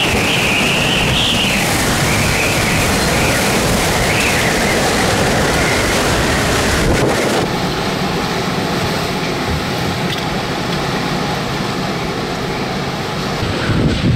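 Hurricane-force wind rushing and buffeting the microphone, with a wavering high whistle through the first half. The sound changes abruptly about seven seconds in and is duller after that.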